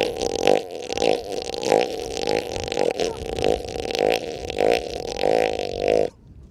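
Elephant seals' deep, rapidly pulsed burp-like calls, one after another, which are dominance vocalizations. The sound cuts off suddenly about six seconds in.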